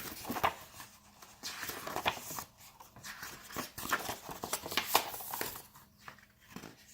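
A picture book being handled and its pages turned: a run of short, irregular rustles.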